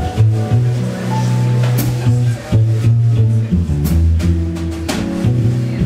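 Jazz double bass played pizzicato, a line of deep plucked notes that moves every half second or so, with occasional drum-kit cymbal and drum hits behind it.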